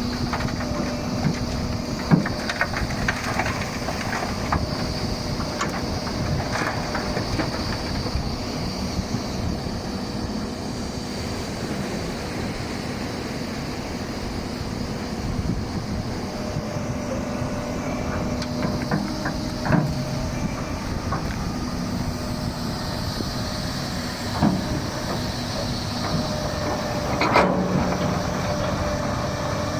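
Doosan 300LC-V tracked excavator running steadily as it works, with a few short metallic knocks scattered through it.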